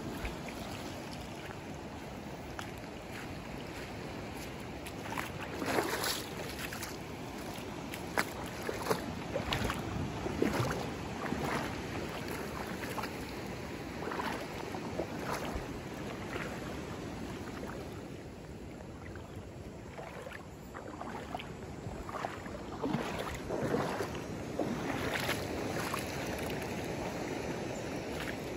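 Footsteps crunching irregularly on coarse coral sand over a steady wash of small waves at the shoreline, with wind on the microphone.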